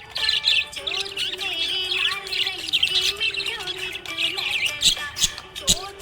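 Budgerigars chirping and warbling rapidly and continuously, with a song playing underneath.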